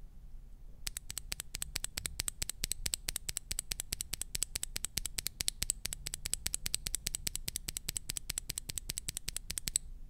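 Gazzew Boba U4T tactile mechanical keyboard switch with an ABS keycap, held in the fingers and pressed rapidly over and over: a fast, even train of clacks, about six or seven a second, starting about a second in and stopping just before the end.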